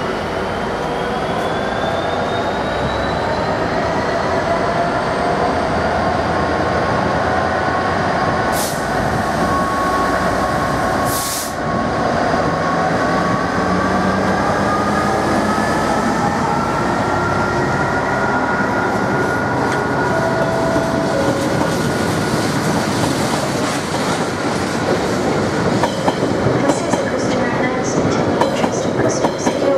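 Class 66 diesel freight locomotive, its EMD two-stroke V12 engine running, passing slowly at close range and drawing a train of empty container flat wagons. The wagon wheels squeal in long wavering tones over the steady rolling rumble, with two brief hisses about nine and eleven seconds in. Regular clicking of wheels over rail joints follows near the end.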